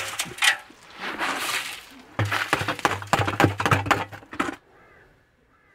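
Sand-and-gravel mix tipped from buckets into a cement mixer's metal drum: stones hissing and rattling against the drum in several pours, a dense clatter from about two seconds in. It stops abruptly about four and a half seconds in.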